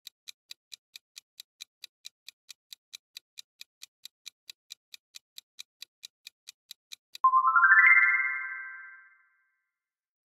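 Quiz countdown-timer sound effect: light, even clock-like ticking at about four ticks a second, stopping about seven seconds in as the time runs out. A louder electronic chime follows, sweeping upward in pitch and then fading over about two seconds.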